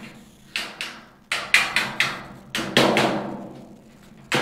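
Claw hammer tapping a sheet-metal S-cleat onto the long edge of a rectangular duct section: a series of sharp metallic taps in quick groups of two or three with short pauses between, each with a brief ring from the sheet metal.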